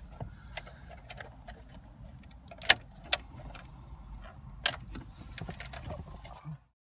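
Plastic wiring-harness connectors being unplugged from the back of a BMW CCC navigation unit: a run of sharp clicks and rattles as plugs are released and the metal-cased unit is handled, the loudest about three seconds in and several smaller ones near the end, over a low steady rumble. The sound cuts off suddenly near the end.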